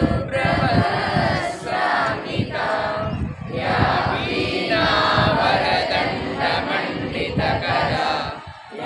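A group of voices singing or chanting a devotional prayer in unison, in phrases with short pauses between them.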